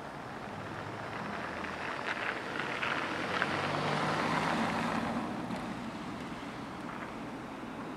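A car passing close by on a snow-covered road: tyre noise and engine hum grow louder, peak about four seconds in, then fade away.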